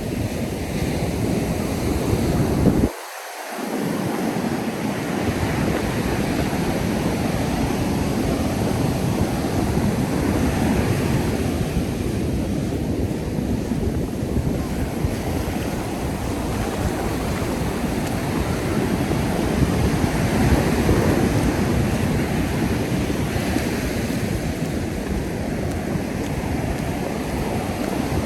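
Ocean surf washing onto a beach, a steady rush of breaking waves, with wind buffeting the microphone. The low rumble cuts out briefly about three seconds in.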